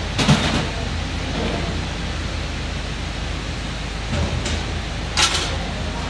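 Metal engine parts handled during a V8 teardown: a short clatter of metal just after the start and a sharper metallic clink near the end, with a smaller knock shortly before it.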